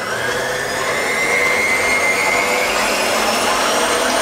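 Stand mixer running with its whisk beating egg whites in a steel bowl: a steady motor whine that builds up over the first second, as the whites begin to whip into foam.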